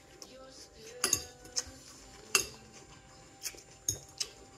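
Eating sounds from someone chewing a mouthful of noodles and vegetables, with several sharp clicks and light ticks scattered through.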